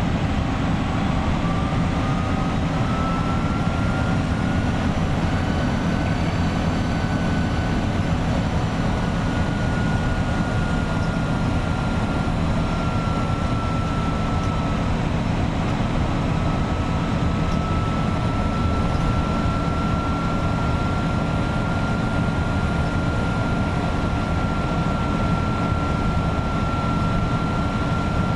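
Iveco 170S28 bus diesel engine running steadily at cruising speed, with a shrill turbocharger whistle over the rumble that rises a little in the first few seconds and then holds steady. The turbo noise comes from a turbo problem the bus has had since the factory, and it makes the engine sound far more strained than its roughly 2000 rpm.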